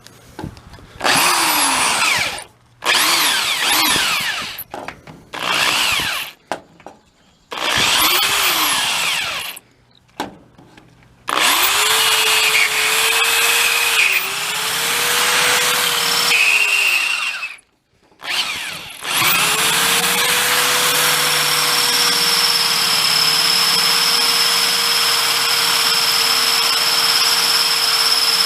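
Electric drill boring out a stripped, rusted hinge bolt hole with a slightly larger bit. It goes in several short bursts, each spinning up and winding down, then in longer runs from about eleven seconds in, and runs steadily for the last nine seconds or so.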